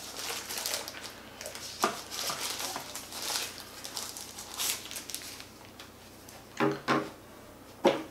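Thin plastic wrapping crinkling and rustling as the drone's remote controller is unwrapped by hand, with small clicks. Two short bits of voice come near the end.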